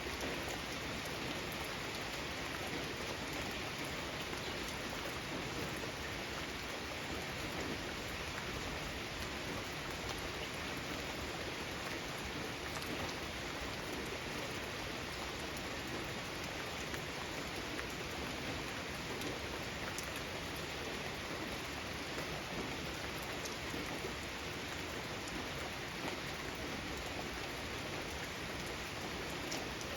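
Steady rain falling on a garden, an even hiss of drops with a few sharper drip ticks now and then.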